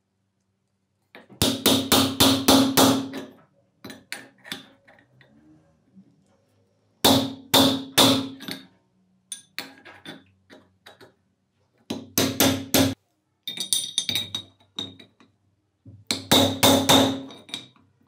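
The cast-iron hopper and shaft of an old hand coffee grinder being shaken and turned, with a loose metal part knocking inside it. The sound comes in several bursts of quick, ringing clacks, about four a second.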